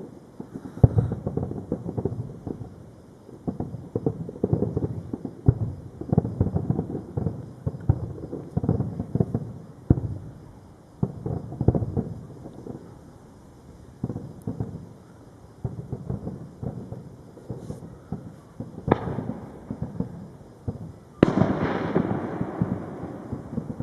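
Distant aerial fireworks going off in a rapid, continuous run of low booms. Two sharper, louder bangs come near the end, the second one rumbling on.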